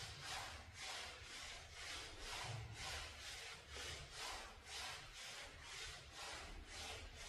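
Exercise sliders under the heels scraping across the gym floor: a faint, rhythmic scraping hiss, about three strokes a second.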